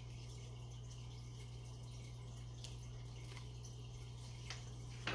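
Quiet room tone with a steady low hum, and a few faint clicks from a picture book being handled as its page is turned, the sharpest about five seconds in.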